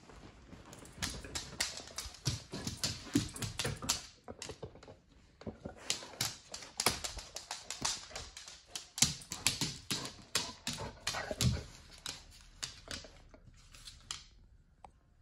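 A dog's claws clicking and tapping on a hardwood floor as she walks, a dense run of quick taps that stops about a second before the end.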